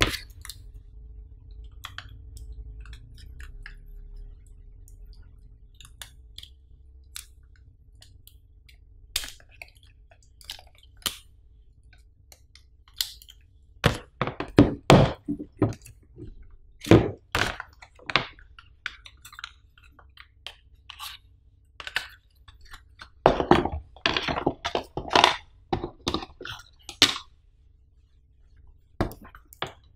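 Hands handling a MacBook Air's white plastic power adapter and its cable: scattered taps and clicks of plastic, with busier clusters of knocks and clatter about halfway through and again in the last third.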